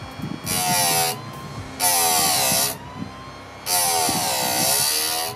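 Harbor Freight electric chainsaw sharpener's grinding wheel brought down onto a saw chain cutter three times, each pass a short burst of grinding. In each pass the pitch sags and comes back up as the motor slows under the load.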